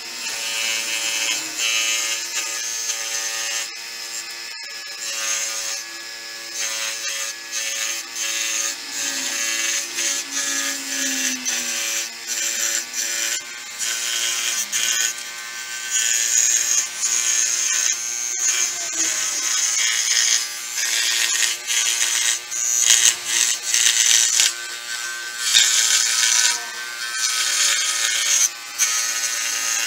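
A small electric power tool running continuously, its load and loudness rising and falling as it works.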